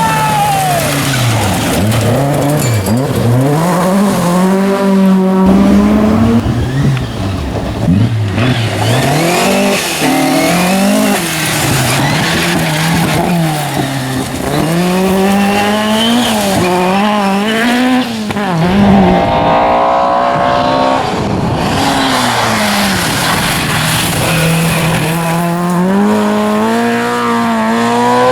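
Ford Escort RS rally car engines revving hard. The pitch climbs and drops again and again, every second or two, through gear changes and lifts off the throttle.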